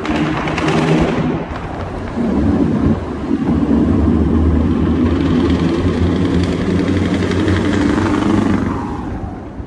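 Scania semi truck's engine and exhaust running under way, a loud deep rumble inside a road tunnel, swelling about two seconds in and fading near the end as the truck pulls ahead.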